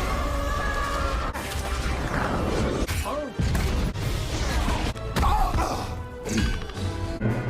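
Action film soundtrack: dramatic music mixed with crash and impact effects, broken by several abrupt cuts.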